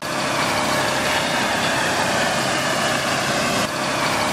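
Loud, steady engine-like running noise that starts abruptly and holds level, with a brief dip near the end.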